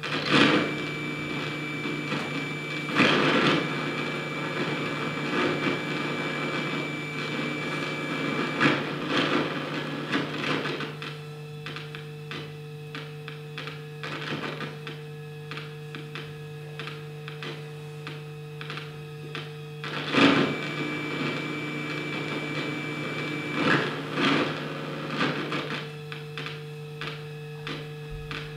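Experimental electroacoustic music for prepared zither, clarinet and electronics: a steady low electronic hum with a mid tone that cuts in and out. Over it come a few sharp struck or scraped attacks, and twice a thin high ringing tone is held for a few seconds.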